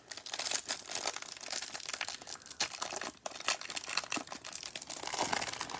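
Clear plastic wrapper crinkling and crackling as gloved hands peel it off a pack of trading cards: a dense, irregular run of crackles.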